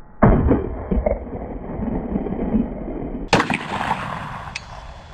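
A gunshot about a quarter second in, blasting a stack of apples and their plastic stand, with a few sharp knocks about a second in as the pieces land. A second sharp bang comes a little past three seconds.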